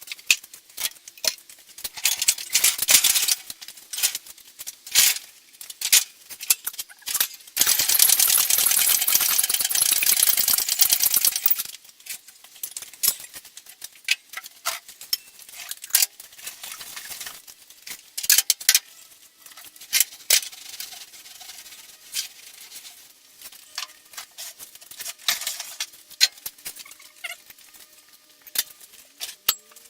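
Metal tools and parts clinking, tapping and knocking in irregular bursts. A steady hiss runs for about four seconds partway through.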